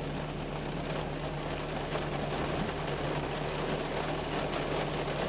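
Heavy diesel truck engine idling with a steady low hum, over a constant hiss of traffic on a wet highway.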